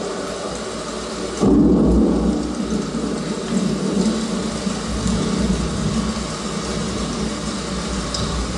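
Played-back stage soundscape: a steady rushing noise, joined about a second and a half in by a sudden deep rumble that carries on to the end.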